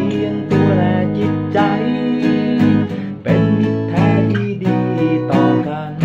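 Cutaway acoustic guitar strummed in a steady rhythm, about two strums a second, playing chords of a mid-tempo song in E major.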